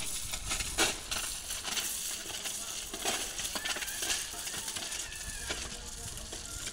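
Scattered clinks and knocks of ballast stones and steel hand tools as track workers dig around the sleepers, over a steady outdoor background noise.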